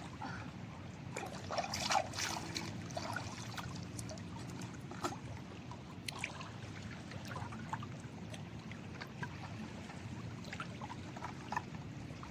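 Water trickling and splashing in short irregular bursts, busiest about two seconds in, over a steady low rumble.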